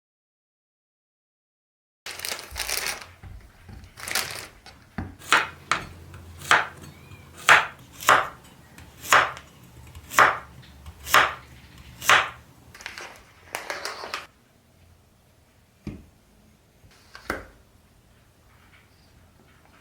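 A kitchen knife chopping on a cutting board, starting about two seconds in with a run of steady strokes a little under a second apart, which stop after about twelve seconds. Two lighter knocks follow near the end.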